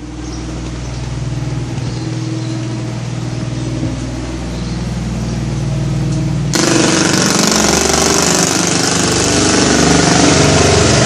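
A motor vehicle engine running steadily, with a sudden jump to loud rushing noise about six and a half seconds in.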